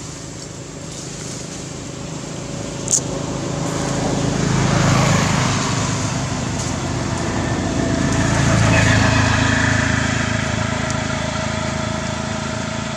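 Engine of a passing motor vehicle, swelling and fading twice, with a sharp click about three seconds in.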